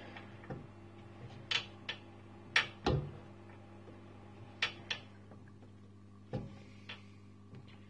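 Scattered clicks and knocks, about nine in all and loudest about three seconds in, from handling the laser cutter's glass laser tube and its silicone cooling hoses. A steady low hum runs underneath.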